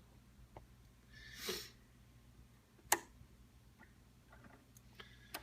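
Quiet room with a low steady hum: a short sniff-like breath about a second and a half in, a single sharp click near the middle, and two fainter clicks near the end.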